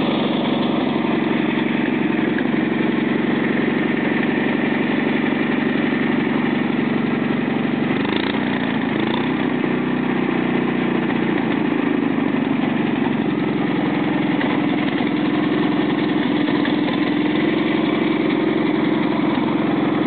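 Small air-cooled lawn-tractor engine running at a steady idle; about eight seconds in its speed dips and wavers as the carburettor throttle is moved by hand, then it settles again and picks up slightly near the end.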